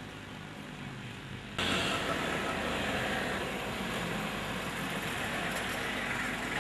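Police pickup truck driving past close by: a steady noise of engine and tyres on the road that comes in suddenly about one and a half seconds in.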